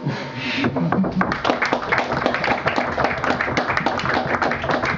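Small audience applauding: many hands clapping densely and at once, the ovation that marks the end of a talk.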